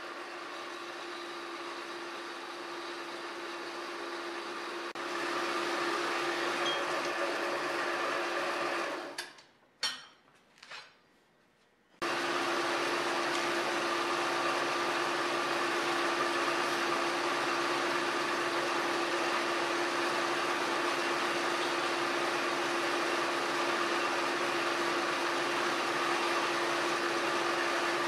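Horizontal metal-cutting bandsaw switched on and running with a steady whir, its blade cutting through square steel tube. About nine seconds in it falls quiet for a few seconds with a couple of knocks, then starts again abruptly and runs on steadily.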